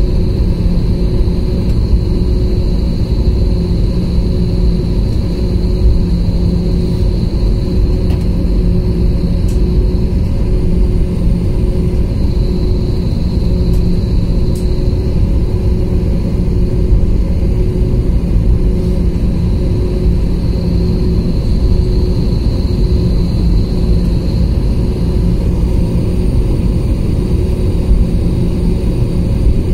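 Steady cabin rumble of an Airbus A320neo taxiing, from its Pratt & Whitney PW1127G geared turbofan engines at taxi power. A constant low hum runs through it, with a faint high whine that fades in and out.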